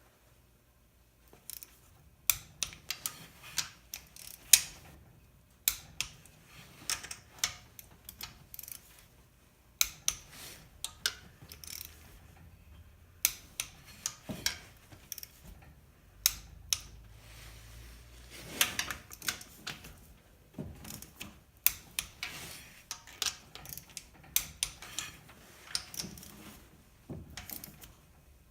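Ratchet wrench tightening reused cylinder head bolts on an LQ4 V8 to a first pass of 22 ft-lb: runs of sharp ratchet clicks with short pauses between them.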